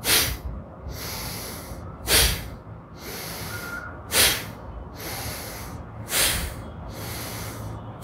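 A man breathing forcefully through the nose in time with chest-level arm-pulling stretches during a pranayama exercise. There are four short, sharp breaths about two seconds apart, with a longer, softer breath between each.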